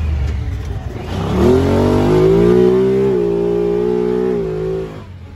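Side-by-side UTV engine accelerating along a dirt trail: the revs climb about a second in, hold high for about three seconds, then drop away near the end as the throttle comes off.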